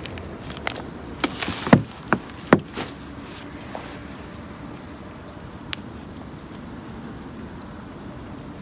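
Wood fire crackling in a fire pit, with a quick run of sharp pops and snaps in the first three seconds and a single pop later, over a steady low hum.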